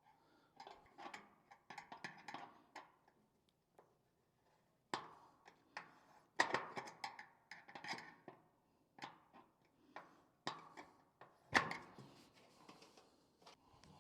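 Irregular light clicks, knocks and short scrapes of a chimney-liner clamp being tightened by hand, with one sharper knock near the end.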